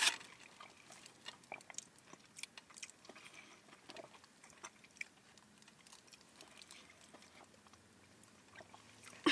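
Faint eating sounds: chewing with small scattered clicks and smacks, while lemonade is sipped through a straw.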